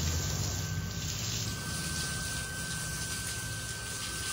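Water spraying from a hand-held hose onto a woven cot, a steady hiss of spray splashing on the rope weave. A faint steady high whine runs underneath.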